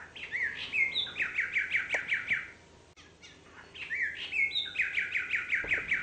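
A songbird singing two similar phrases about three and a half seconds apart. Each phrase is a few quick rising whistled notes followed by a fast run of about eight down-slurred notes on one pitch.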